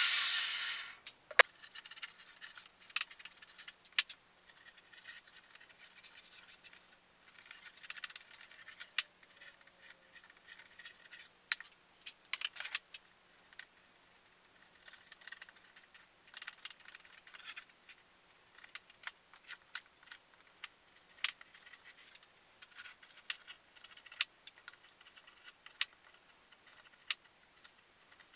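A table saw winding down in the first second, then faint, scattered scrapes, rubs and light clicks from handling and working thin pine strips by hand at a workbench.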